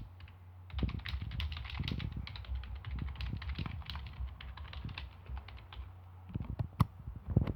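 Typing on a Motospeed K70 non-mechanical keyboard: quick, irregular key clicks after a short pause at the start, with a few heavier thumps near the end.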